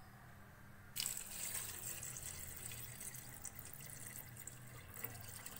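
Water pouring into a pot of raw beef pieces, onion and whole spices. It starts suddenly about a second in and splashes steadily.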